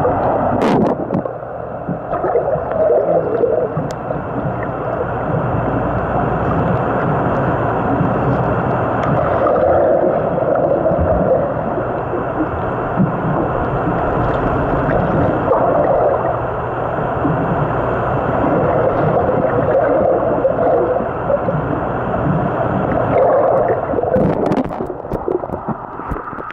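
Muffled underwater water noise picked up by a camera held under the surface of a swimming pool: a steady gurgling wash that swells and eases every few seconds.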